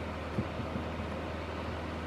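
Esperanza Mojave EHH002 electric fan heater running steadily: a rush of blown air over a low motor hum, with a faint click a fraction of a second in as its thermostat knob is turned.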